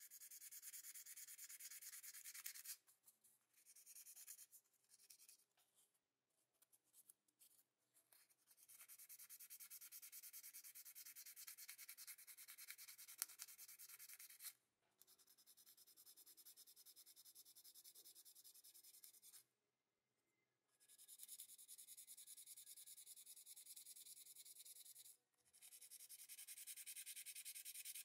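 Sanding sponge rubbed in quick short strokes over a bare die-cast metal toy-car body: a faint, high scratchy hiss that comes in spells, breaking off for several seconds with only scattered scratches a few seconds in, and briefly stopping three more times later.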